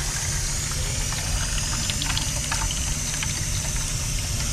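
Ethylene glycol–water solution draining from the gauge's drain valve into a bucket, with scattered small drips and splashes. A steady low machinery hum runs underneath.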